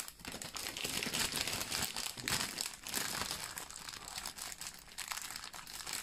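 Clear plastic bag crinkling and crackling as hands pull it open and off its contents: an irregular run of small crackles.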